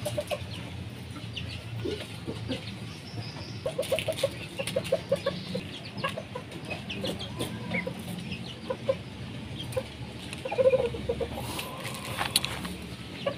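Kate bantam chickens clucking, with a quick run of clucks about four seconds in and a louder, drawn-out call near eleven seconds.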